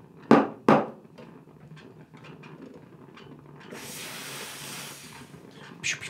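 Two sharp clinks of a ceramic cup set down on the metal top of a Gaggia Classic Evo espresso machine. About four seconds in comes a short hiss of steam from the machine's steam wand, lasting about a second and a half.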